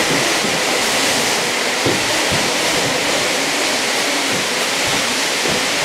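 Steady rushing hiss of a long Axminster woven carpet being flapped and dragged along the floor over its pad, with a few soft thumps about two seconds in.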